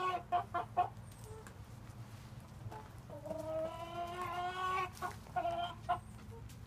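Chickens calling: a long, drawn-out call followed by a quick run of short clucks, heard twice, with a quieter gap between.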